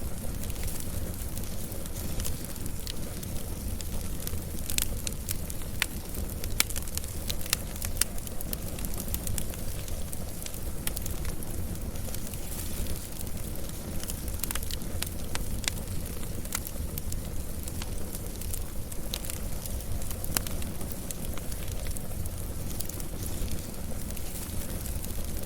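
Wood fire burning steadily, with a low rumble and frequent sharp crackles and pops scattered throughout.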